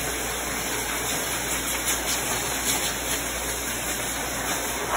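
Pet grooming dryer blowing a steady rush of air through its hose and nozzle, drying a cat's wet fur after a bath.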